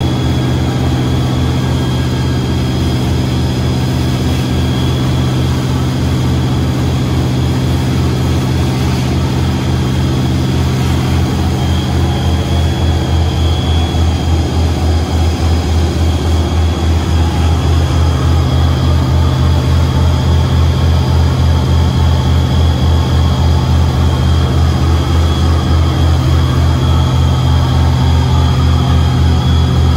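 A crab workboat's engine running steadily while underway: a low, even throb with a fine regular pulse.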